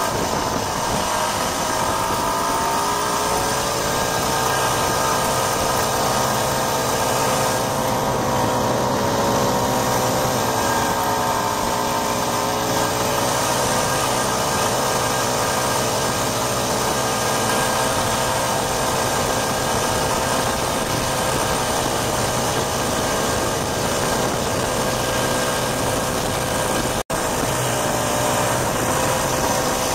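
Vintage Ski-Doo Olympique snowmobile's two-stroke engine running steadily while riding, its pitch drifting gently up and down with the throttle. The sound drops out for an instant near the end.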